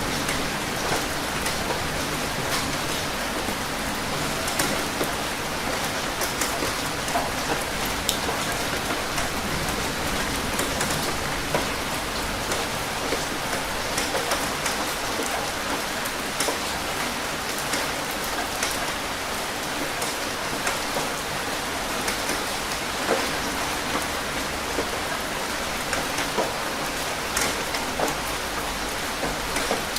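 Steady rain falling, with many distinct drops hitting a surface in a constant, even hiss.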